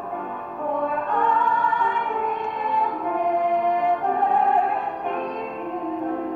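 Women singing a musical-theatre duet, recorded live, holding long sustained notes.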